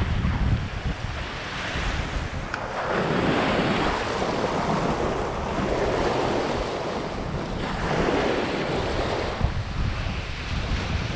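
Small waves washing up onto a sandy beach, swelling and fading every few seconds, with wind buffeting the microphone.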